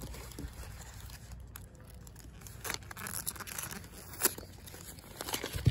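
Plastic foil wrapping on a skein of t-shirt yarn rustling and tearing as it is pulled open by hand. It gives a string of sharp crackles, the loudest about four seconds in and another near the end.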